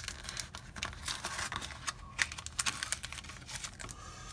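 Stiff plastic blister packaging of trading-card booster packs crinkling and crackling as it is handled and pried open by hand, a quick run of sharp clicks and rustles.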